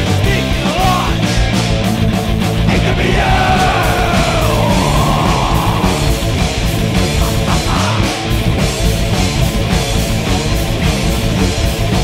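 Thrash metal band playing live: distorted electric guitars, bass guitar and fast drums, with shouted vocals. A long sliding, wavering note rises over the band from about three to six seconds in.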